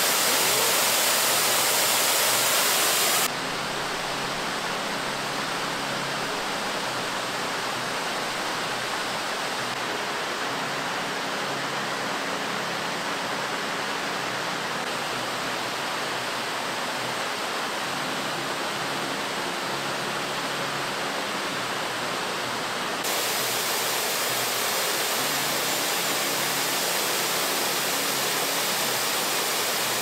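Steady rushing of a waterfall. The rushing drops in level and loses its top end about three seconds in, then comes back up about 23 seconds in.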